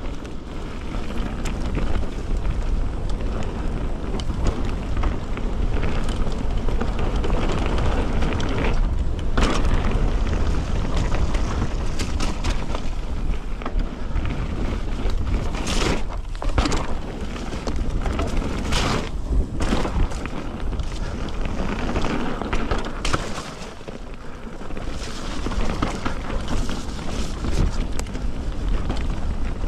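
Merida One-Sixty mountain bike descending a dirt downhill trail: knobbly tyres rolling over dirt and roots, with the chain and frame rattling and sharp clatters over bumps now and then. Heavy wind rumble on the chest-mounted camera's microphone runs under it all.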